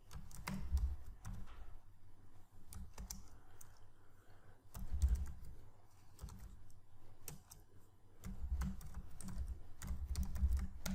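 Typing on a computer keyboard: irregular runs of keystroke clicks broken by short pauses.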